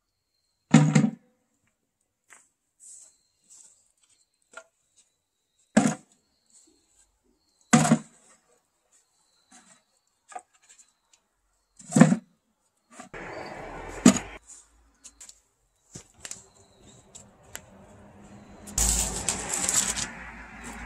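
Four loud, sharp knocks a few seconds apart, with faint ticks between them. Then a stretch of rustling and scraping noise that grows louder near the end.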